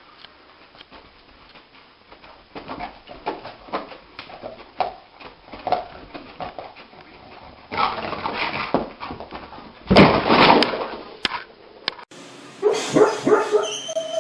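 A sleeping dog whimpering and giving short muffled barks as it dreams, a call every half second or so. Two louder, longer bursts come about halfway through.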